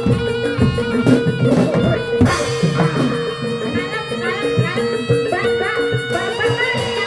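Live traditional Javanese barongan music: hand-drum strokes over a steady held high note and wavering melodic lines from the ensemble, played without a break.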